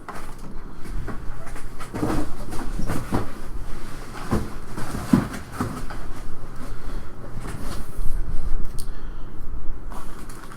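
Hobby box and card packs being handled on a table: irregular knocks, clunks and rustling of cardboard and wrappers.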